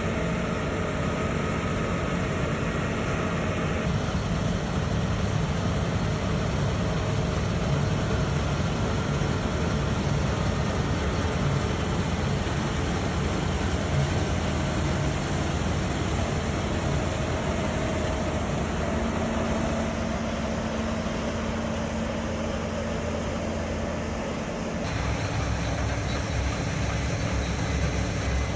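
Combine harvesters running steadily while harvesting wheat: a continuous engine and threshing drone. The sound changes abruptly about 4, 20 and 25 seconds in.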